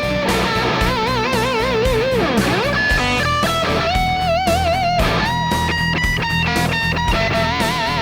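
Electric guitar played through a Sonicake Pocket Master headphone amp/effects unit on a high-gain distorted tone. It plays a lead line of held notes with wide vibrato and quick runs of short notes, sliding down in pitch about two seconds in and again near the end.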